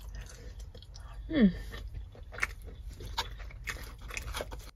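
A person chewing a mouthful of rice and chicken stew, with many short clicks of the mouth and a brief falling hum about a second and a half in.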